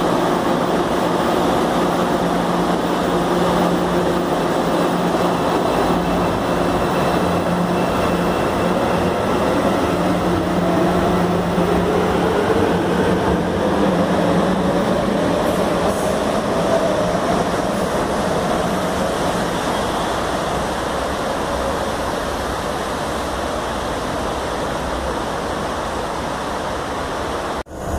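Electric metro train pulling out of a station, its motor whine rising in pitch as it speeds up, then the running noise fading as it moves away.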